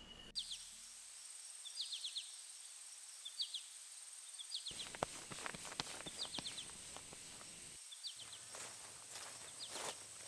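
Faint forest ambience: a small bird gives quick runs of three or four high chirps about every second and a half over a steady high insect whine. From about halfway, footsteps crunch on leaf litter and soil.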